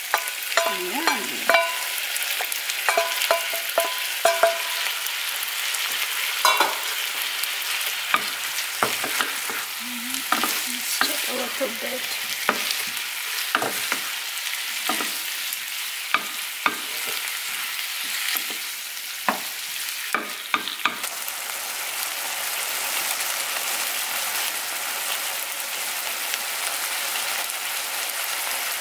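Chicken adobo with potatoes sizzling in a frying pan, stirred with a wooden spatula that knocks and scrapes against the pan many times. The knocks thin out in the last third, leaving a steady sizzle.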